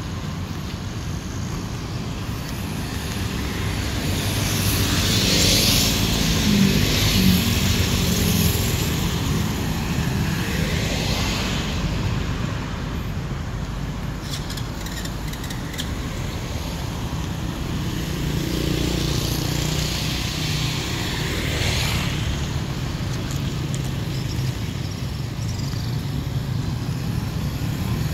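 Road traffic: cars and motorcycles passing one after another, each swelling and fading, over a steady low rumble. The loudest pass comes about five seconds in, with others near the middle and about three quarters of the way through.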